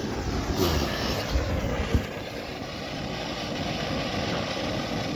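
Ground firework fountain spraying with a steady rushing hiss that cuts off abruptly at the end.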